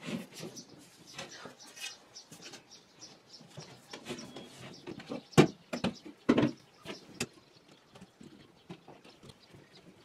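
Rubber hoses and stiff aluminum cable being handled on a plastic folding table: scattered scrapes, rustles and knocks. The loudest is a sharp knock about five and a half seconds in, with a cluster of knocks about a second later.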